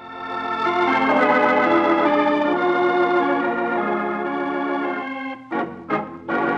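Music bridge between scenes of a radio drama: sustained keyboard-like chords swell in, change and hold for about five seconds, then break off into a few short sharp strokes near the end.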